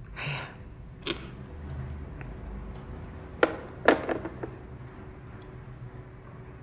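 A plastic telephone handset being hung up on the cradle of a desk phone: two sharp clicks about half a second apart, followed by a few lighter clicks.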